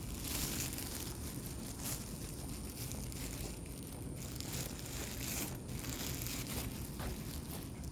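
Plastic poop bag crinkling and rustling in the hand in irregular bursts, over a steady low rumble.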